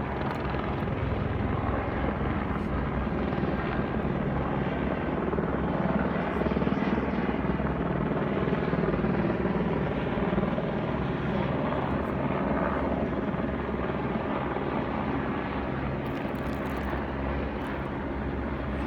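Helicopter flying low overhead, its rotor beating steadily. It swells a little in the middle and eases slightly toward the end.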